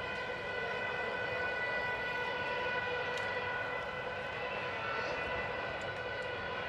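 Distant street-protest ambience of traffic and crowd noise, with a steady, held tone sounding over it without rising or falling.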